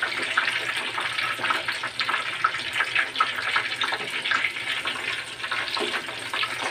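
Breaded chicken cordon bleu deep-frying in a small saucepan of hot oil: a steady sizzle with many small crackles.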